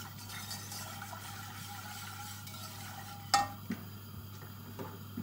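Wire whisk stirring sugar into water in an enamelled cast-iron pot, faint. About three seconds in there is a sharp clack of the whisk against the pot, followed by a couple of lighter knocks.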